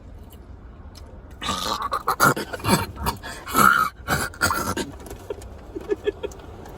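A person coughing and gasping in a run of harsh bursts for about three seconds, choking on a fry that went down almost whole.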